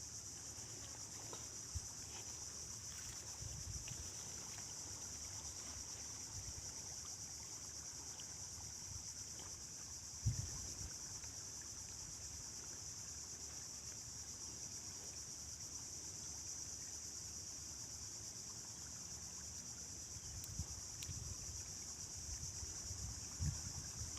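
Riverside ambience: a steady high-pitched insect drone, with low wind rumble on the microphone and a single thump about ten seconds in.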